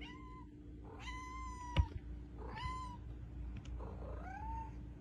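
Domestic cat meowing four times in short, high mews, the second the longest and the last rising then falling. A single sharp click comes about two seconds in.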